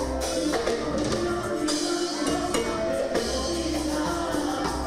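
Cumbia amazónica music from a band with drums and a lead voice singing.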